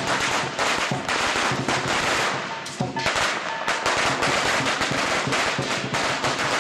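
A long string of firecrackers going off in rapid, continuous bangs, with a short lull about three seconds in.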